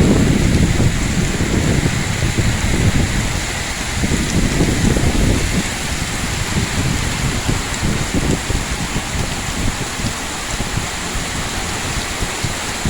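Heavy rain falling steadily, with strong wind gusting and buffeting the microphone in uneven surges.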